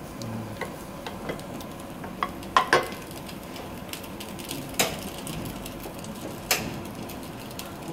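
Kitchen utensils knocking on metal cookware: a wooden spatula tapping and scraping a stainless saucepan of tomato sauce as it is stirred. A few separate sharp clicks, the loudest pair near the middle, over a faint steady hiss.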